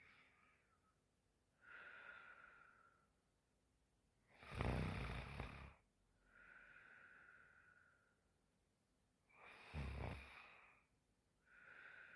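A woman snoring in her sleep: two loud snores about five seconds apart, each followed by a softer breath.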